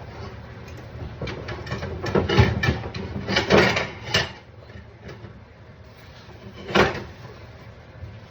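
Household knocks and clatters, like cupboard doors or drawers being worked: a cluster of sharp bangs about two to four seconds in, then one more loud knock near the end.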